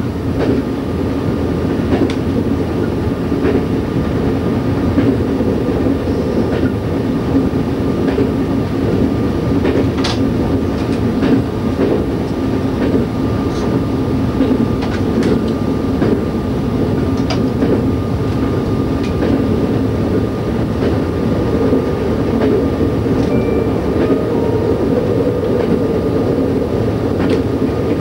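Y2 diesel multiple unit running at speed, heard from the driver's cab: a steady drone of engine and running gear, a faint steady whine, and scattered sharp clicks from the wheels on the track.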